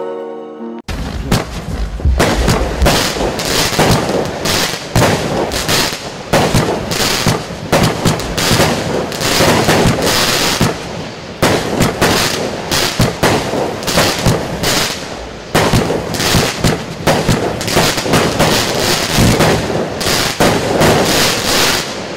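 Lesli Freakstyle 25-shot fireworks cake firing: a rapid run of shots starting about a second in, their bursts breaking into loud crackling, going on for about twenty seconds.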